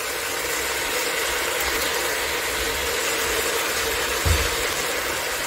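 Steady hiss and hum of kitchen background noise, with one dull thump about four seconds in.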